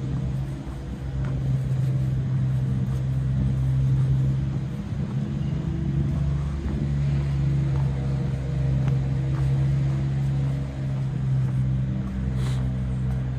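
Steady low hum of an idling engine on a city street, with a faint click near the end.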